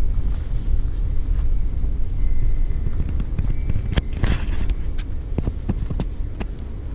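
Footsteps through bamboo undergrowth: a string of sharp snaps and crackles of twigs and dry leaves, thicker in the second half, over a steady low rumble of wind and handling on the camera microphone.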